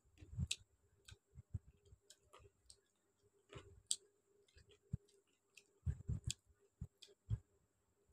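Close-up eating sounds: irregular wet clicks and smacks of chewing chicken curry with rice, with a few soft low thumps as fingers work the food in steel dishes.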